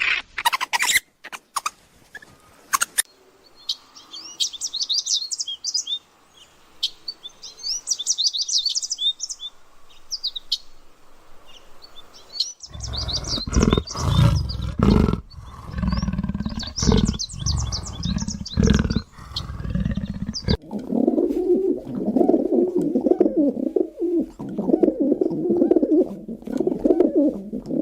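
Small birds chirping in quick, high calls, then a stretch of loud low rumbling and knocking that cuts off suddenly, followed by a low, pulsing call.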